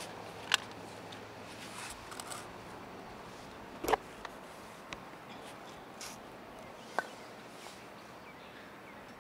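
Wooden croquet mallet striking croquet balls: a few sharp, separate knocks, the loudest about four seconds in.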